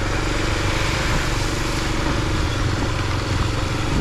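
Off-road motorcycle engine running steadily as the bike is ridden, with a constant hiss over it.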